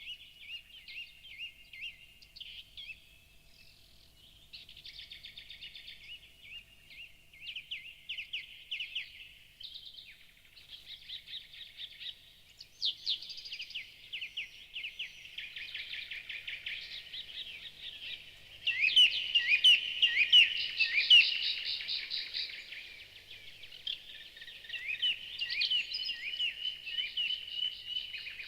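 Many songbirds singing and calling at once, a dense chorus of rapid chirps and trills. It grows louder about two-thirds of the way through.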